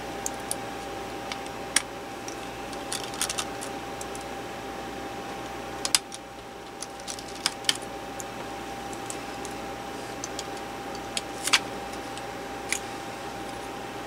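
Scattered small clicks and taps of a precision screwdriver and tiny screws against a laptop's metal chassis as a cooling fan is unscrewed and handled, over a steady hum with a faint high tone.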